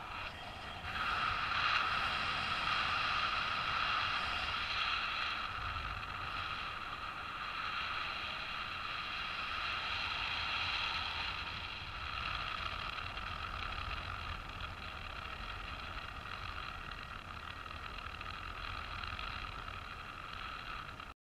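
Air rushing over the microphone in paraglider flight: a steady hiss with a ringing whistle and a low rumble. It cuts off suddenly near the end.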